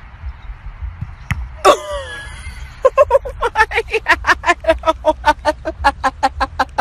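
A person laughing hard in rapid, high-pitched bursts, about five a second, for the last four seconds. It follows a short cry about a second and a half in.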